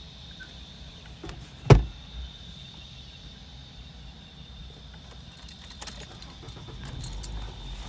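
A single sharp thump about two seconds in, then light clicking and rattling near the end, over a low steady rumble and a faint steady high tone.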